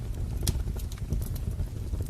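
Wood fire crackling: irregular sharp pops and snaps over a steady low rumble of burning logs, with one louder crack about half a second in.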